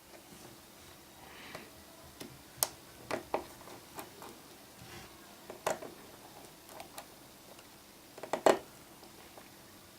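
Scattered small clicks and taps of a precision screwdriver and tiny screws against the iPhone 5C's metal parts while the screws are driven in, with a short cluster of louder clicks near the end.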